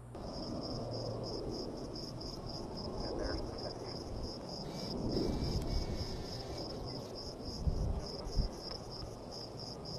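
Insect chirping in an even rhythm, about three chirps a second, over a low rumbling noise, with two brief low thumps near the end.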